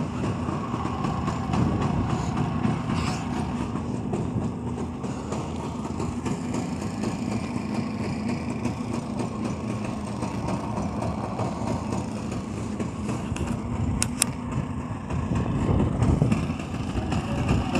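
Small engine of a Muravey-type three-wheeled cargo scooter idling steadily, with a short sharp click about fourteen seconds in.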